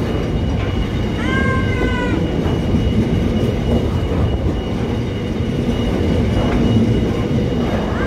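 Container freight train wagons rolling past close by: a steady loud rumble of steel wheels on rail. About a second in, a brief high squeal rises and falls for just under a second.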